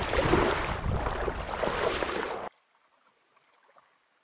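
Wind buffeting the microphone over water splashing and sloshing as a tandem inflatable kayak is paddled. About two and a half seconds in the noise cuts off suddenly, leaving near silence with faint water ticks.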